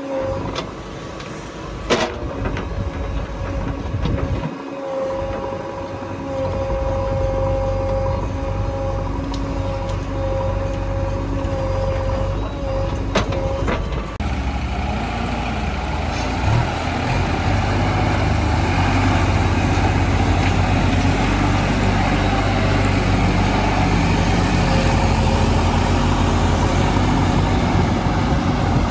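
Heavy diesel machinery engines running, with a steady high whine and two sharp knocks in the first half. From about halfway the engine note thickens and grows louder, as if working harder.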